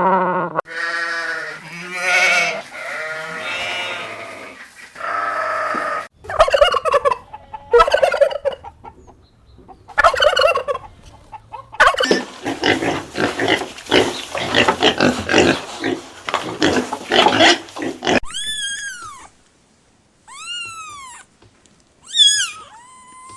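Farm animals calling one after another. First come pitched calls, then short grunting bursts, then a long, rapid, rattling call. Near the end there are a few short, high, arched chirps.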